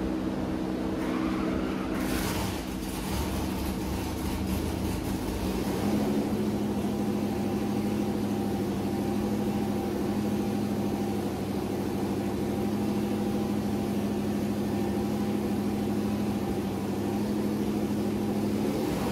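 Supercharged 4.8-litre LS V8 with an Eaton M90 Roots blower running steadily on an engine dyno, a check run after fitting 799 cylinder heads. There is a brief hiss about two seconds in, and the engine note shifts about six seconds in.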